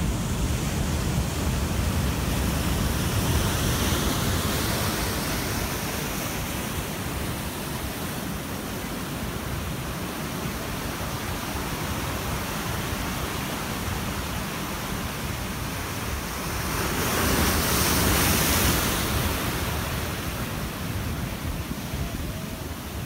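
Ocean surf breaking and washing in a steady rush, with a louder breaking wave swelling up about three-quarters of the way through and lasting a couple of seconds. Wind rumbles on the microphone underneath.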